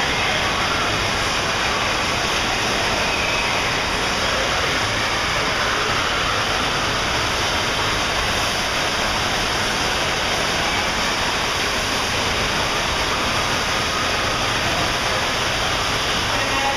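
FlowRider surf simulator's pumped sheet of water rushing steadily up the ride surface: a loud, even rushing noise that stays the same throughout.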